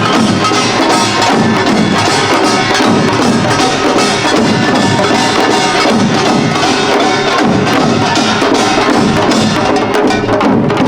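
Korean pungmul percussion ensemble playing loud and continuous: kkwaenggwari small gongs clanging in rapid strokes over janggu hourglass drums and buk barrel drums.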